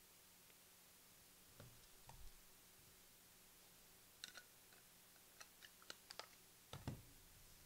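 Faint clicks and soft taps from handling trading cards and plastic card holders: two low thumps early, a run of small sharp clicks from about the middle, and a slightly louder thump near the end.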